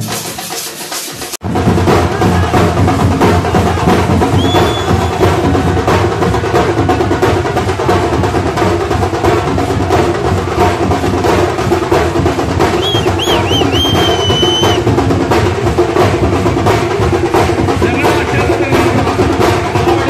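Thambolam percussion band playing: large barrel drums, small snare-type drums and hand cymbals struck together in a fast, dense rhythm that starts abruptly about a second and a half in. High whistle-like tones cut through briefly twice, the second time warbling for about two seconds near the middle.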